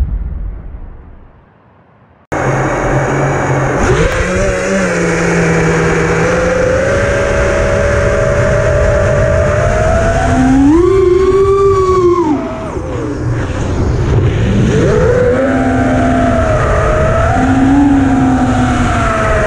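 Onboard audio of an Armattan Chameleon FPV quadcopter: the motors and propellers whine over a rush of wind noise, starting abruptly about two seconds in after a fading intro sound. The pitch rises and falls with the throttle, surges highest around the middle, dips, then climbs again.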